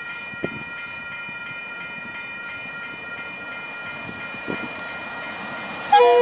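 Two DFB diesel locomotives approaching at full power with a loaded log train, heard as a steady rumble with a held high tone. Near the end the locomotive horn sounds, suddenly and loudly.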